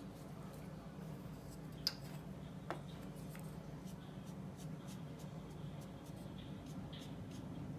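Oil paintbrush scratching and dabbing on paper, faint and intermittent, with two sharp clicks about two seconds in and a steady low hum underneath.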